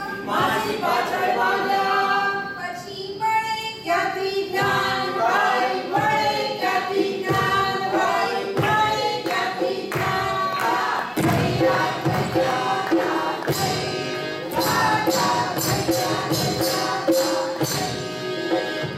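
A group of voices singing a Bhavai folk-theatre song together, accompanied by drum beats.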